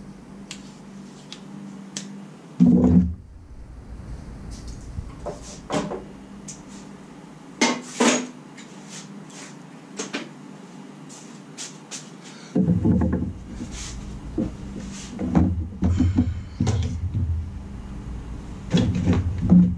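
Handling noises of someone working on the car: scattered clicks and taps, a loud knock about three seconds in, and heavier knocking and rubbing in the last seven seconds.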